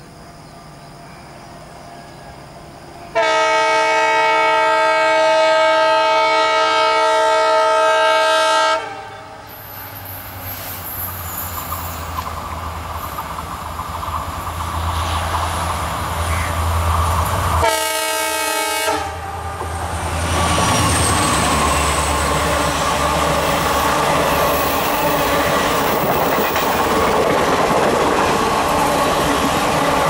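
WDP-4D diesel-electric locomotive sounding one long horn blast of about five seconds, then its EMD 16-cylinder two-stroke diesel engine running and getting louder as it approaches. A second short horn blast comes about halfway through, followed by the loud steady rush of the express running past at speed.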